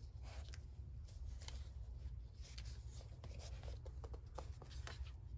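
Pen writing on the paper of a handmade journal: light, scratchy strokes and small taps, over a low steady hum.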